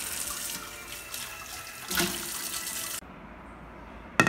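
Tap water running onto a plate in a stainless steel sink, with a knock of the plate against the sink about two seconds in. The water cuts off abruptly about three seconds in, and near the end a plate is set down on a table with a sharp clack.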